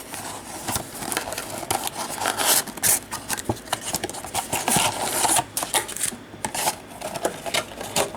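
Hands handling a cardboard trading-card box and its card packs: a steady run of rustling, scraping and crinkling with sharp little clicks.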